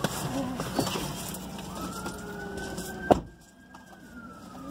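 Wailing siren of an approaching fire apparatus, its pitch rising slowly and then falling. A sharp click about three seconds in is the loudest moment, and the steady hiss underneath cuts off with it.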